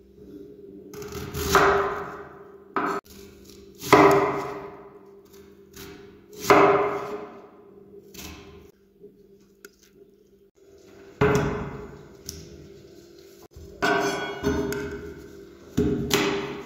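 A kitchen knife slicing thin sheets off a block of stringy white cheese on a wooden cutting board: about eight separate slicing strokes, each swelling and fading over roughly a second, with one sharp click about three seconds in. A faint steady hum lies underneath.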